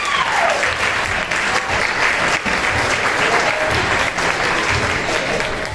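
Audience applauding: sustained, dense clapping from a large crowd, with a cheer trailing off at the start.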